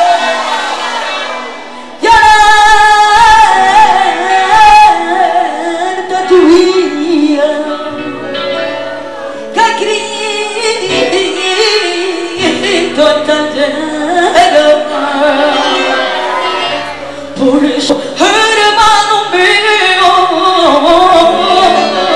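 A woman singing a religious song into a microphone, with ornamented, wavering held notes over a steady instrumental backing.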